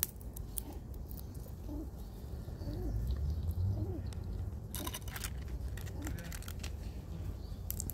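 Feral pigeon cooing softly, a string of short low coos about a second apart. About five seconds in there is a quick run of sharp clicks and scratches, over a steady low rumble of wind or handling on the microphone.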